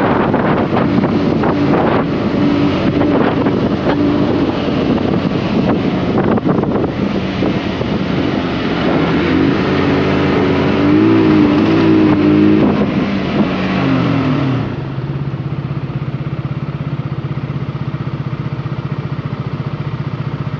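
Honda CBR150R's single-cylinder engine under way with wind rushing over the microphone, its pitch rising and falling and then sliding down. About three-quarters of the way through the wind stops suddenly and the engine settles into a steady idle.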